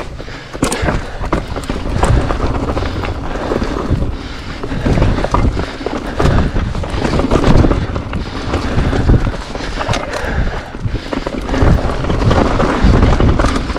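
Electric mountain bike rattling over rough, rocky trail, with irregular knocks and clatter from the tyres and frame striking rocks. A constant low rumble runs through it from wind buffeting the action camera's microphone.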